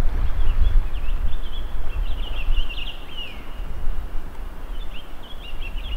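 Wind buffeting the microphone as a low rumble, with small birds chirping rapidly, busiest about two seconds in and again near the end.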